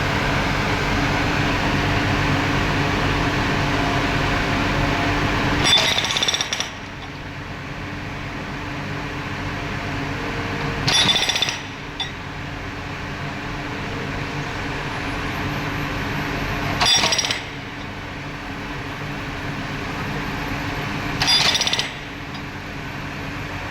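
Pultvizor SV55 hydraulic rock breaker on a JCB JS35Z mini excavator hammering steadily for about the first six seconds. After that the excavator's engine keeps running more quietly, broken by four short, loud bursts with a ringing metallic tone, about five seconds apart.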